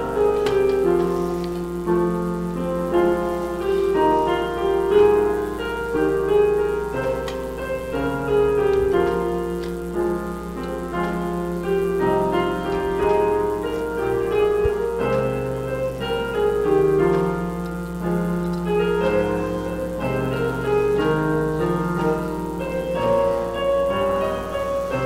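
Piano playing chordal music, with the notes and chords changing about every half second to second, as offertory music in a church service.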